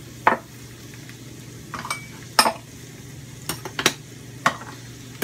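Kitchen utensils and dishes clinking: a spoon knocking against a bowl and pan in several short, sharp clinks scattered through, over a faint steady sizzle of frying.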